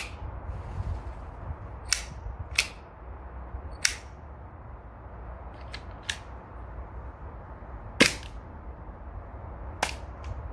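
Glock 17 Gen 4 CO2 blowback BB pistol firing 4.5 mm steel BBs: about eight sharp, short shots at uneven spacing, the loudest about eight seconds in. A low rumble of wind on the microphone runs under them.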